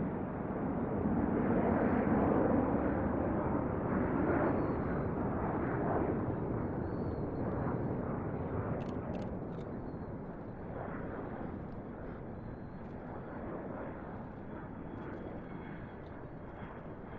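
Dassault Rafale C's twin Snecma M88 turbofans: a steady jet rumble that gradually fades as the fighter draws away.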